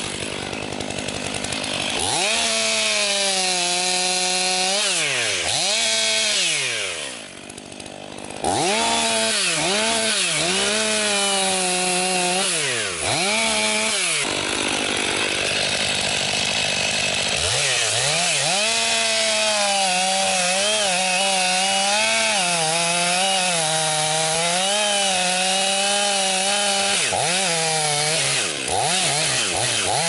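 Stihl MS 500i two-stroke chainsaw sawing into the base of a pine trunk, revving up and falling back in a string of short cuts, with a brief drop in level about seven seconds in. From about the middle on it runs in one long cut at a fairly steady, slightly wavering pitch.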